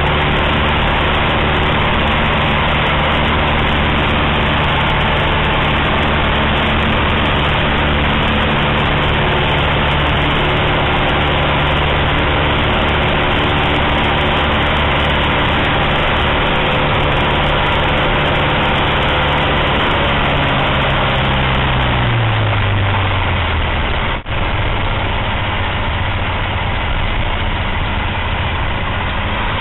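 Cessna 152's Lycoming O-235 four-cylinder engine and propeller heard from inside the cockpit, droning steadily on final approach. About two-thirds of the way in the pitch falls over a few seconds as the throttle comes back to idle, and the engine then idles at a lower pitch as the plane rolls on the runway.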